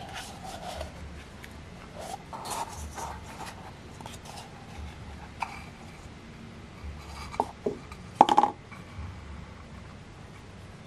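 Handling noise of a paper cup and plastic string: light rubbing, crinkles and small taps, with a louder cluster of scrapes about eight seconds in.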